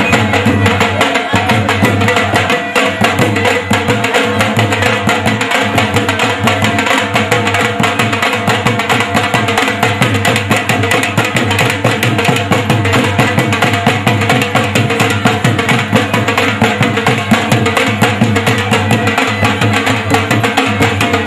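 Dhol drumming with sticks in a fast, unbroken rhythm of rapid strokes.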